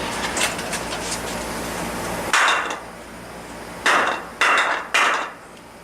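Steady hiss, typical of a running torch heating the engine case, cuts off a little over two seconds in. Four heavy knocks follow as the hot Tomos A35 moped engine case is struck to drive out a stuck blind bearing: one, then three close together about a second and a half later.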